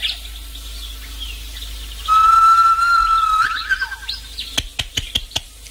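Birds calling: short chirps and a long, steady whistled note lasting about a second and a half, followed by a quick run of sharp clicks near the end.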